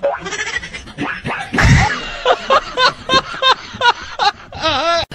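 A loud slap-like thump about a second and a half in, followed by a person laughing in short repeated bursts.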